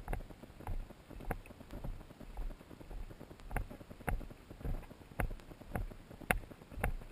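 Footsteps crunching on a rocky, gravelly dirt trail at a steady walking pace of nearly two steps a second, with a low rumble underneath.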